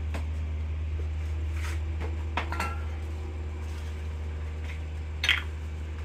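A few light clinks and knocks of small metal parts and tools being handled on a workbench: one about two and a half seconds in and another near five seconds. A steady low hum lies under them.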